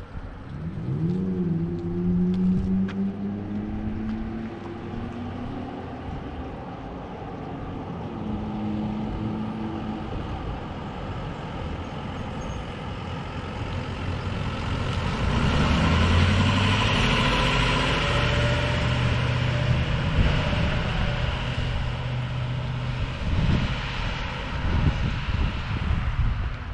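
An engine revs up about a second in and settles into a steady drone. Then a heavy emergency vehicle approaches and drives past close by, its engine and road noise loudest about two-thirds of the way through.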